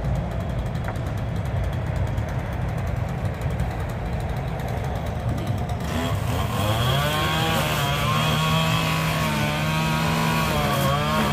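String trimmer's small engine running while cutting grass: a low, rough running sound at first, then about six seconds in it revs up to a steady high-pitched drone, held until near the end.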